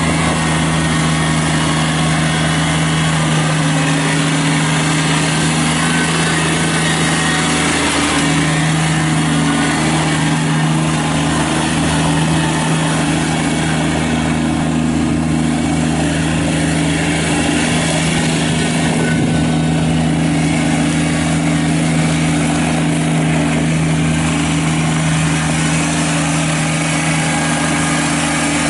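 Kubota BX23S subcompact tractor's three-cylinder diesel engine running steadily at a constant speed.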